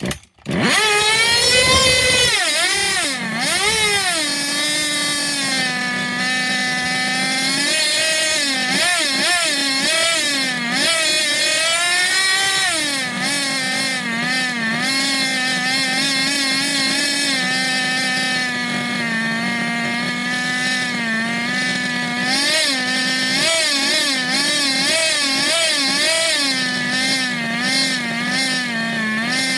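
Small nitro glow-fuel engine of an FTX Zorro RC truck firing up and running on test after a rebuild. It revs up and down with a wavering pitch for about the first dozen seconds, then settles to a mostly steady fast idle with a few short revs near the end.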